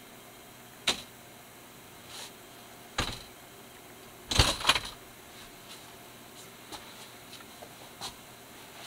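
Several sharp knocks and a brief, louder rattling clatter about halfway through: a person moving about inside a camper and handling things, over a faint steady hum.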